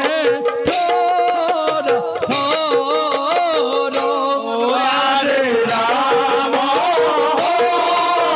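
Assamese bhaona music: a sung, wavering melody over a steady held note, with drum strokes.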